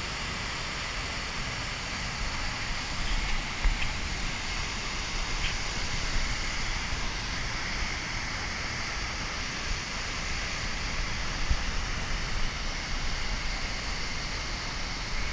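Whitewater river rapids pouring over and around boulders: a steady, full rushing of water. A few low bumps break through here and there.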